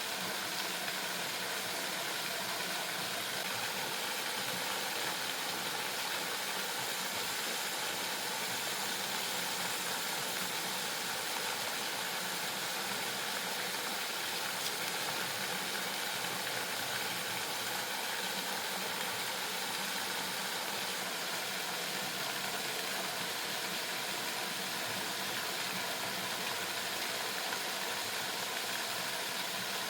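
Waterfall rushing, a steady, even noise of falling water.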